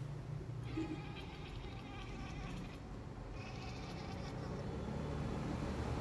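Domestic cat giving two long, drawn-out complaining meows, the first starting about a second in and lasting about two seconds, the second a little shorter just after the middle, in the angry, scolding mood its owner teases it about.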